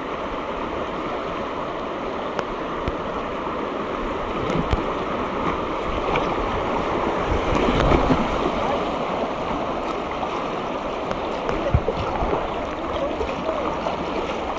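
Rushing river whitewater around a whitewater kayak running a rapid, swelling to its loudest about eight seconds in as the bow pushes through a wave, with scattered splashes and knocks of paddle strokes.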